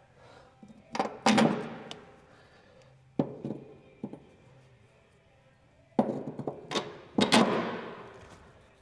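A series of clunks and knocks from hard parts being handled, the two loudest about a second in and near the end, each ringing off for about a second.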